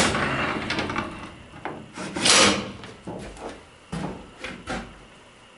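Corrugated sheet-steel panels of a two-speed freight elevator door, worked by a chain, sliding shut with a scraping rattle. A louder clatter follows about two seconds in, then several sharp metal knocks as the panels settle and latch.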